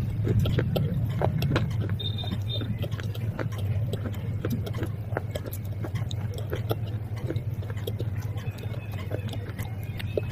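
Close-up chewing of crunchy baked clay and slate pencil pieces: irregular crisp crunches and clicks several times a second, over a steady low hum.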